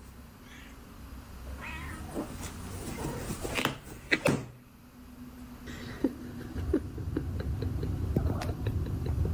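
A cat meowing in short calls, among scattered knocks and taps, the loudest a pair of sharp knocks about four seconds in.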